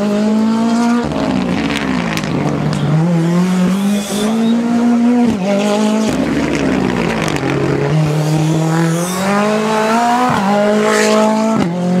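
Ford Fiesta R5 rally car's 1.6-litre turbocharged four-cylinder engine driven hard through a bend. The revs climb and drop sharply about four times as the driver shifts and lifts, with sharp cracks from the exhaust.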